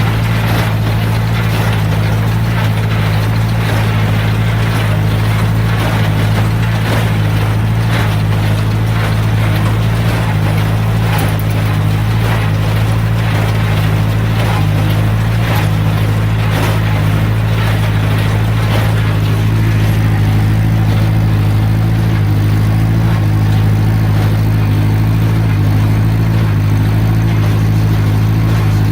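John Deere 2010 tractor engine running steadily under load while working hay, with a busy clatter of sharp knocks from the machinery through about the first two-thirds that thins out after that.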